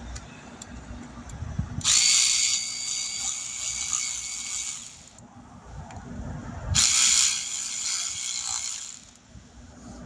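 Power driver running in two spells of about three seconds each, about two and seven seconds in, with a steady high whine: screws being driven home as the AC compressor parts are fastened back together.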